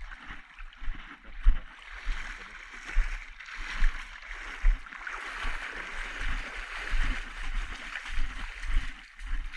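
Footsteps wading through shallow water, splashing and sloshing, with irregular low thumps of the steps.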